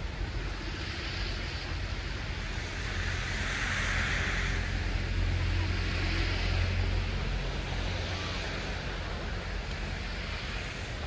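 City street traffic: a steady low rumble of engines with the hiss of tyres on a wet, snowy road, swelling as vehicles pass through the middle and easing off toward the end.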